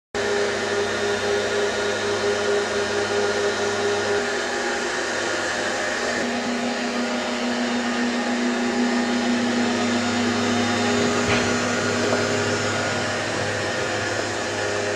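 Steady whirring of a small electric fan motor, whose tone steps down to a lower pitch about five seconds in. There is a brief click near the eleven-second mark.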